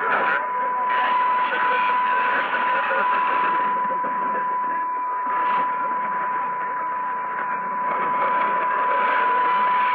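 Weak shortwave AM broadcast heard through a Sony ICF-2001D receiver on its narrow filter: hiss and static with faint, fading station audio and a steady whistle.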